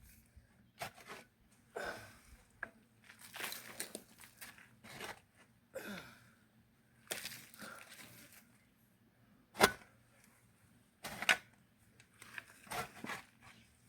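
Digging tool working into soil: irregular scrapes and crunches of earth being dug and shifted, with two sharp loud strikes in the second half.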